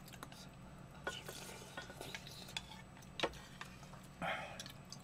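Faint scraping and clinking of a wooden spoon against a ceramic bowl of ramyeon as the noodles are stirred, with a few sharper knocks. A short soft rush of noise comes near the end.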